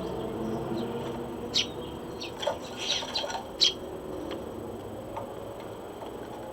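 Eurasian tree sparrow chirping: a scatter of short, sharp, high chirps, bunched in the middle, over a low steady background hum.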